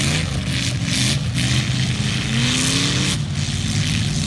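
Stock car engines running on the dirt track, one revving up and climbing in pitch through the middle before backing off just after three seconds in.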